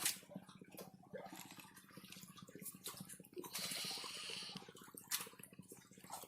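Water splashing and dripping with scattered clicks, and a brief rush of water about three and a half seconds in, over a steady low hum.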